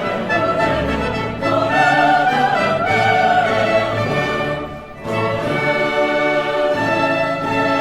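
Symphony orchestra and choir performing classical music, with sustained strings and wavering sung voices. The sound dips briefly about five seconds in, then carries on.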